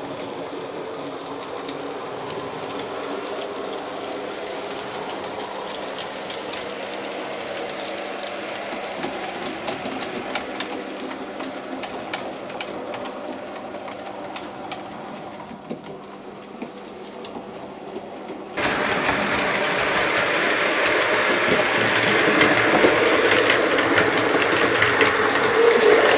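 A model train running on the layout: a small electric motor whirring with wheels clicking over the track. It gets suddenly louder about two-thirds of the way through.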